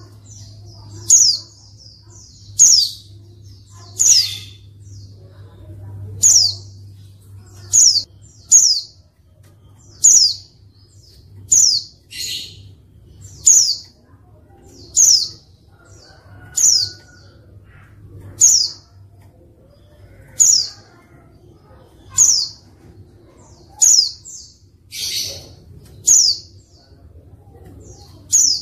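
Female white-eye (pleci) giving short, high, downward-sweeping call notes, about one every second and a half, with a couple of harsher, buzzier calls among them. This is the female call used to prompt male white-eyes to answer and sing.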